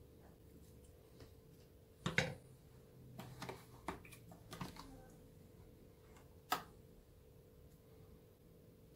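Metal spoon tapping and scraping against a plastic butter tub and a frying pan while butter is spooned into the pan: a handful of light, sharp clicks, the sharpest about two seconds in and again about six and a half seconds in.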